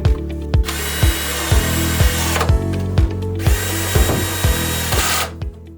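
Power drill driving screws, run in two bursts of nearly two seconds each with a short pause between, over background music with a steady beat that fades near the end.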